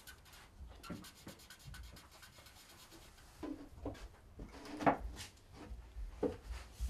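Rubbing and rustling as a wood-framed silkscreen and paper are handled on a glass light table. A louder bump comes about five seconds in.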